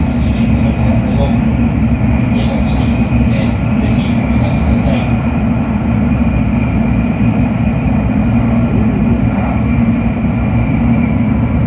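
Interior running noise of a Nishi-Kyushu Shinkansen Kamome (N700S) train at high speed: a steady low rumble with an even rushing hiss over it.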